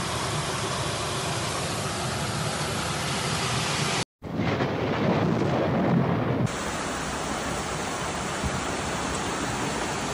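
Steady rushing noise of floodwater and heavy rain. About four seconds in it cuts off for a moment, followed by rain with a low rumble of thunder for about two seconds. It then switches suddenly back to steady rain and running water.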